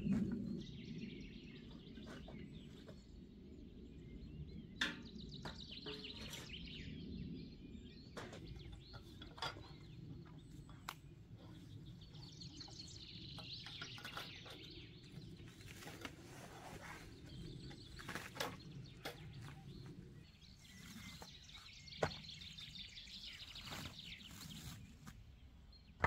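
Faint outdoor ambience: birds calling in three short spells over a low steady background noise. Scattered light knocks and clicks come from camp gear and firewood being handled.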